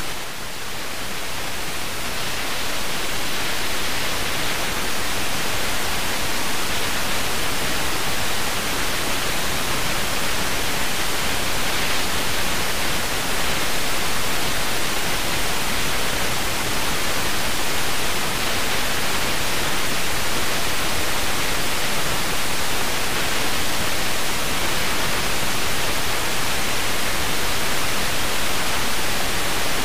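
FM radio hiss and static: the receiver hissing on a dead frequency once the station's signal has gone off the air at sign-off. The hiss swells over the first couple of seconds, then holds steady.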